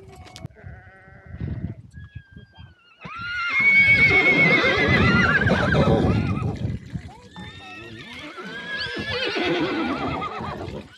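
Horses whinnying twice: a long, loud whinny starting about three seconds in that falls in pitch, then a second, quieter one near the end. The horses are calling to their companion horses ahead.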